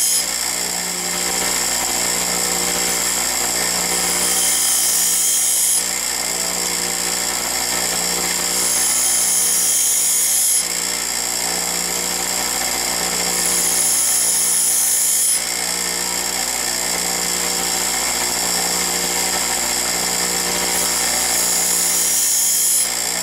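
Bench grinder motor running steadily while a twist drill bit is pressed against its silicon carbide wheel four times, each pass a high grinding hiss lasting about two seconds. The passes grind the bit's secondary relief angle.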